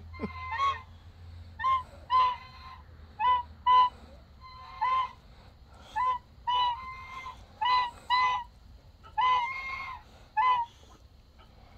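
Domestic goose honking over and over: about fourteen short, sharp honks, often in pairs, roughly one every half second to a second.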